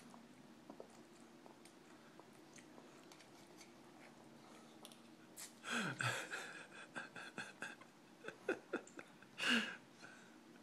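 A toddler slurping and chewing instant ramen noodles. Two loud slurps come about six and nine and a half seconds in, with small wet mouth clicks and smacks between them.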